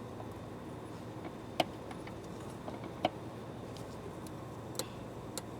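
Three sharp clicks of hand tools against metal engine parts over a steady low hum.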